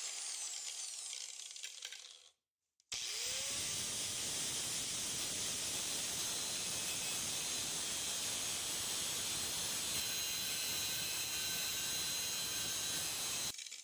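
Angle grinder with a cut-off wheel cutting through a steel bolt held in a vise, a steady grinding hiss. It breaks off briefly about two seconds in, then spins up again and cuts steadily until it stops near the end.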